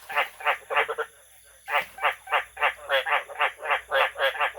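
Frogs calling: a fast run of short, rattling croaks, about four a second, that breaks off for a moment about a second in and then resumes.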